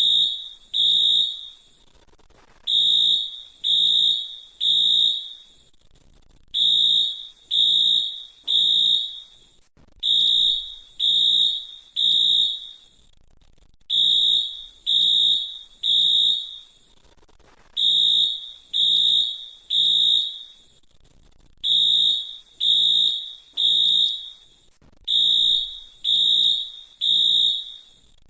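Fire alarm sounding a high-pitched beep in repeating groups of three, each beep just under a second long, with a pause of about a second and a half between groups: the temporal-three evacuation signal.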